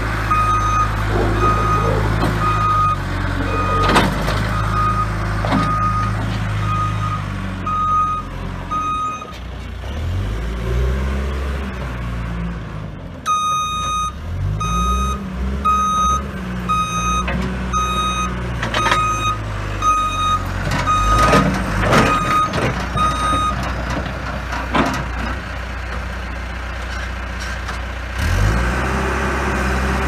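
John Deere 310G backhoe loader's four-cylinder diesel engine running as the machine is driven, its revs rising and falling, with its reversing alarm beeping about once a second in two spells of about ten seconds while it backs up. A few sharp knocks from the machine are heard along the way.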